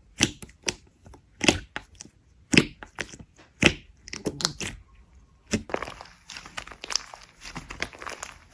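Slime being pressed and poked by hand, giving a string of sharp, separate pops and clicks. About halfway through this gives way to a denser, continuous crinkly crackling.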